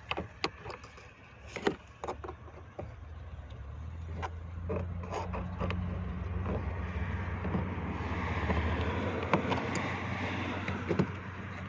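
A few sharp clicks and knocks of hands and a pick working at plastic door trim, then a steady low motor-vehicle hum that slowly grows louder over several seconds.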